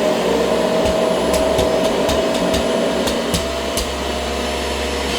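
Kirby Generation 6 upright vacuum cleaner running steadily at full speed just after being switched on, with a constant motor whine. Several sharp clicks or knocks come during the first four seconds.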